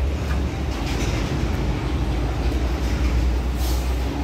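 Large forklift's engine running with a steady low drone and a rattle from the machine as the operator works the controls.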